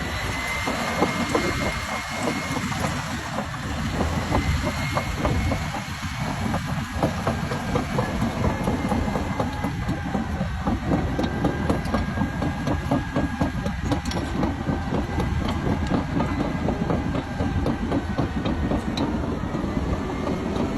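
Caterpillar D7 bulldozer running under load while pushing topsoil: a steady diesel engine note with a high whine over it and the clatter of its steel tracks.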